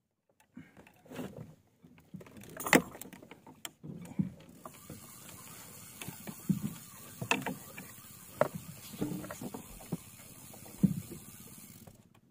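Scattered knocks, thuds and clicks of fishing gear being handled aboard a small wooden boat, the loudest a sharp click about three seconds in. A steady hiss comes in at about four seconds and holds until near the end.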